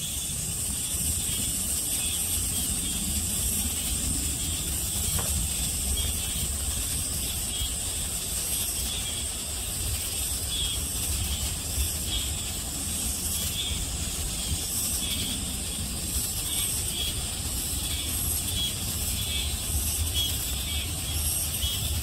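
Summer forest ambience: a steady high-pitched insect drone over a continuous low rumble.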